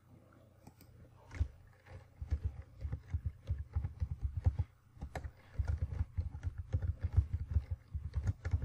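Typing on a computer keyboard: a quick run of key clicks starting about a second and a half in, with a short pause around the middle.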